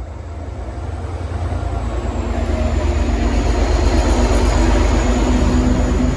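V/Line N class diesel-electric locomotive pulling out under power, its engine rumbling heavily and growing louder over the first few seconds before holding steady.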